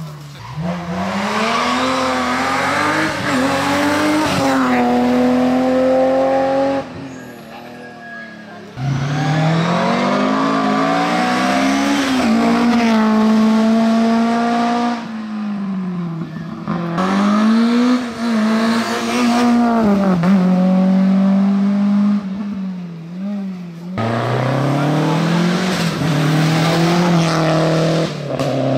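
Historic rally cars driven hard on a special stage: engines revving high and dropping back through gear changes. The sound comes in several short passages that cut abruptly from one car to the next, with a quieter gap around a third of the way in.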